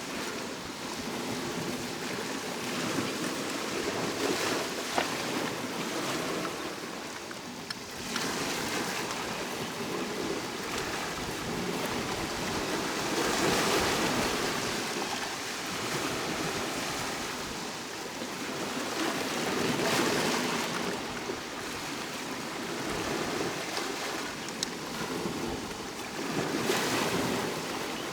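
Sea waves breaking and washing up on the shore, a steady wash that swells with each wave every several seconds and then draws back.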